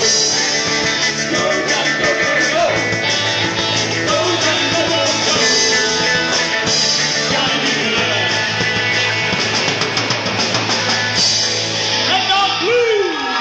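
Live rock band playing a song, with singing over electric guitar and drums. Near the end the music stops and a whoop rises as cheering starts.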